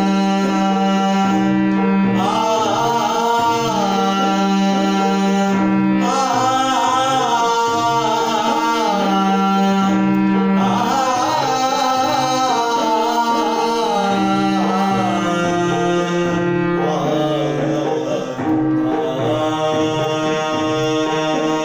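A man singing a Marathi abhang in ornamented, wavering phrases over the steady held chords of his harmonium.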